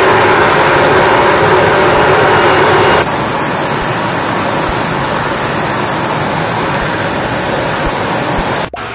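Steady, loud jet-aircraft engine noise on a flight line, a continuous rushing hum with faint steady tones in it. It drops abruptly to a somewhat quieter level about three seconds in, and dips briefly just before the end.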